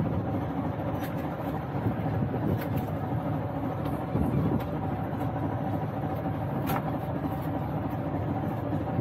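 Steady engine hum from a wooden fishing boat at sea, with a few sharp clicks on deck.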